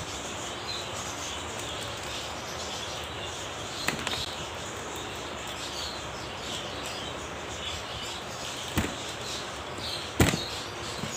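Three short, sharp knocks from a small child's hands handling things at a table, about four, nine and ten seconds in, the last the loudest, over a steady background hiss.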